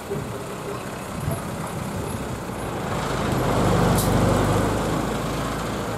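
Kiha 1 narrow-gauge railcar's engine running as it moves past at low speed, its low hum swelling to its loudest about four seconds in and then easing off, with a brief high-pitched sound at the loudest point.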